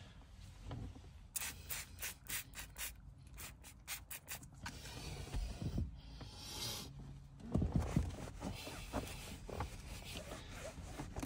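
A trigger spray bottle of interior detailer is spritzed a dozen or so times in quick succession onto a car's plastic door trim. Then, from a couple of seconds in before the end, a microfibre cloth rubs and wipes across the panel.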